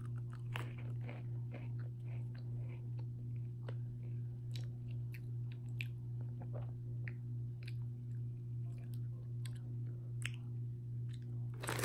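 Someone chewing crunchy bacon-flavoured pretzel sticks: a scatter of small, crisp crunches over a steady low hum.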